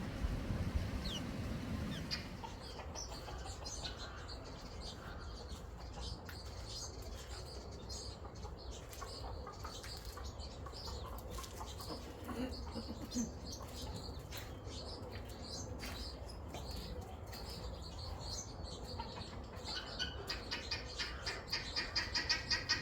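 Small birds chirping softly with scattered high twitters, over a low steady rumble. Near the end a louder call starts, repeated evenly about four to five times a second.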